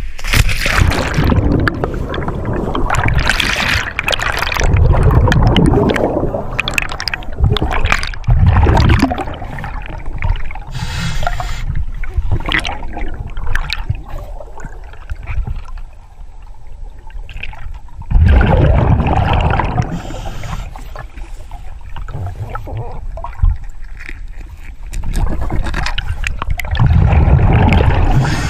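Water gurgling and sloshing around a scuba diver going into the river, coming in irregular loud surges a few seconds apart.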